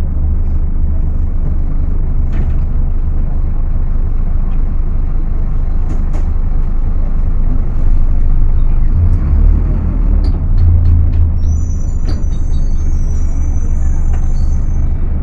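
Scania K250UB city bus's rear-mounted diesel engine running under way, a loud steady low drone that grows louder for a few seconds past the middle as it pulls harder. A thin high-pitched squeal comes in near the end.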